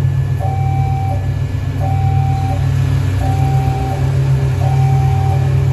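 Railway level-crossing warning alarm sounding a repeated tone, four times, about once every 1.4 seconds, over a deep steady engine rumble.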